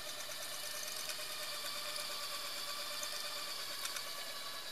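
Bang & Olufsen Beocord 5500 cassette deck's tape transport running, a quiet steady whir with a faint whine as the motor turns the cassette reels.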